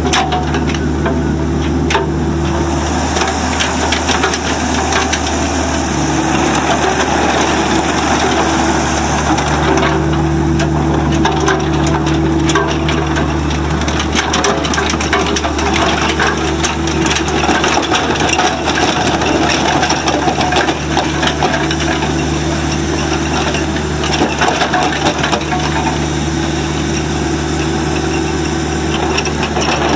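A Bobcat E26 mini excavator's 24.8 HP Kubota diesel runs steadily as the machine tracks and swings. Many sharp clicks and crunches from the tracks on the dirt and gravel are heard over the engine.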